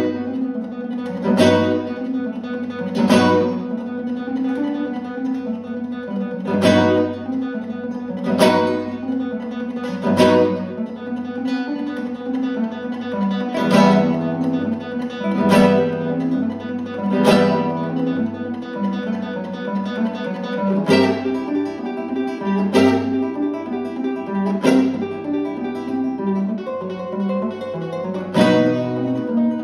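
Solo classical nylon-string guitar played fingerstyle. Sustained notes and arpeggios are punctuated by sharp accented chords struck roughly every two seconds.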